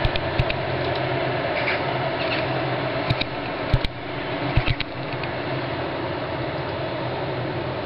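Steady low droning hum of unclear origin, the kind of sky rumble the recordist takes for a strange phenomenon, broken by a handful of sharp clicks from fingers touching the camera's microphone, near the start and again around three to five seconds in.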